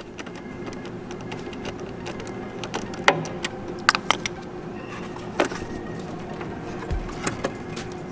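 Scattered sharp metal clicks and taps of a socket wrench working the nut on a car battery's negative terminal clamp as the clamp is loosened and lifted off to disconnect the battery. A steady low hum runs underneath.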